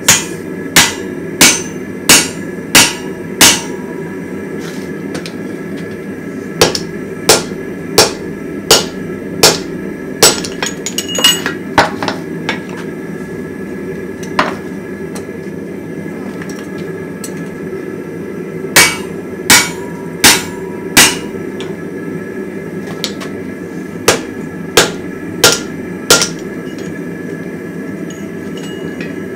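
A hand hammer striking red-hot axe steel on a swage block and anvil. Sharp ringing blows come in runs of four to ten, about three every two seconds, with pauses between. A steady low rushing noise runs underneath.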